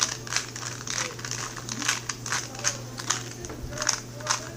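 2x2 Rubik's cube being turned quickly by hand: a rapid, irregular run of sharp plastic clicks, about four a second, as the layers snap round.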